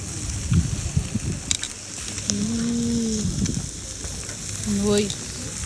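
Meat sizzling on a barbecue grill: a steady hiss, with a few knocks in the first second and a half. A little over two seconds in, a low drawn-out tone lasts about a second.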